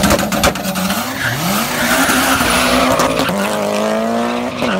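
Two drag-racing street cars, a twin-turbo Ford Mustang and a Mitsubishi Lancer Evolution, launching hard from a standing start, with a few sharp cracks and tyre squeal at the launch. The engines then climb in pitch under full throttle, dropping at upshifts about three and a half seconds in and again near the end.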